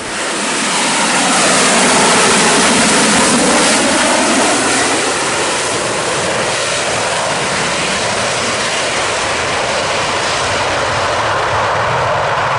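AV-8B Harrier's Rolls-Royce Pegasus turbofan running at high thrust as the jet hovers and moves slowly on its vectored thrust. It is a loud, continuous jet roar with a high whine that swells over the first couple of seconds and then holds steady.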